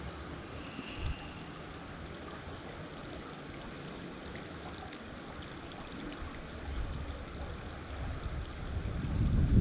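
Wind buffeting the microphone in low gusts that build over the last few seconds, over a steady wash of flowing creek water.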